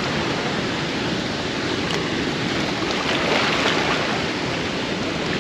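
Floodwater rushing through a spillway: a steady wash of fast, turbulent current over the rocks.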